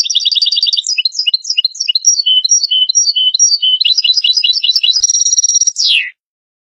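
European goldfinch singing one song phrase. It opens with a fast trill, runs into a string of quick twittering notes, passes to a fast buzzy trill and ends with a falling slurred note about six seconds in.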